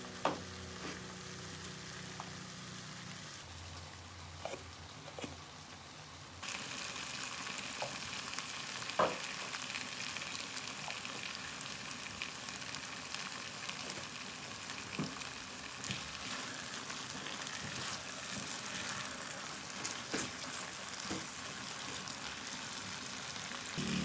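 Food frying in a wok, with the spatula clicking against the pan. About six seconds in, it changes to the louder, steadier sizzle of chili balado paste frying in oil, with scattered scrapes and taps from the spatula.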